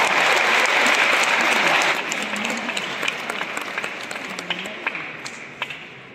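Audience applauding, loud at first, then thinning out and dying away from about two seconds in.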